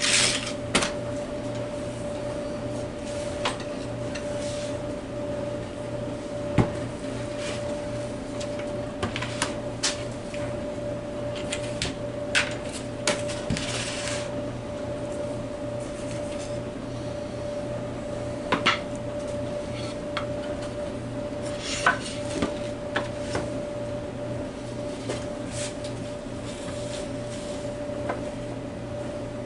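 Scattered knocks, clinks and short scrapes of wood and tools being handled on a workbench, over a steady electrical hum.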